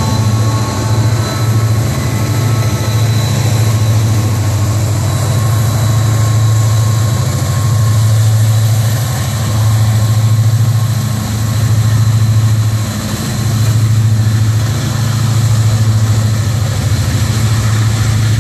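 Freight train pulling slowly past at close range as it picks up speed: a diesel locomotive working under throttle, then tank cars and hoppers rolling over the rails. The low rumble swells and dips every few seconds.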